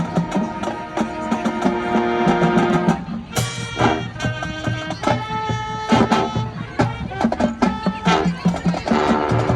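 High school marching band playing, winds and drums together: a held chord for about three seconds, then a sharp accented entrance followed by short punchy hits in rhythm.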